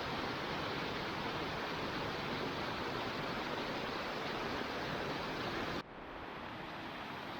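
Waterfall on a moorland stream, water rushing and splashing steadily. About six seconds in the sound drops abruptly to a quieter, duller rush.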